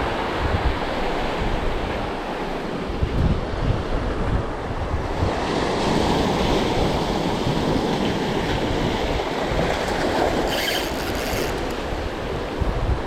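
Sea waves washing in, with wind buffeting the microphone; the surf swells louder about six seconds in.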